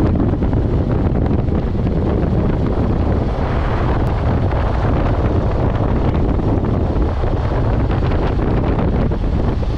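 Wind rushing over a microphone moving at road speed alongside racing cyclists: a loud, steady rush and rumble, with no other clear sound standing out.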